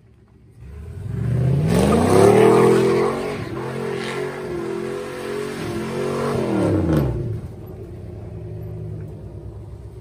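GMC pickup's engine revving up and held at high revs while its rear tyres spin in a burnout, then dropping back to a low rumble about seven seconds in.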